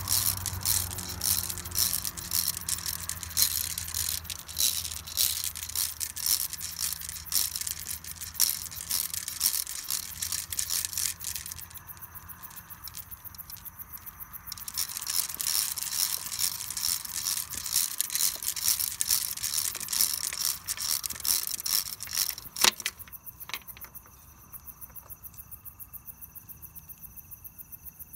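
Plastic bead chain clattering as it is pulled by hand up out of an upright pipe: a fast run of small clicks that pauses about twelve seconds in, then runs on until a single sharp click a few seconds before the end. Crickets chirp steadily in the last few seconds.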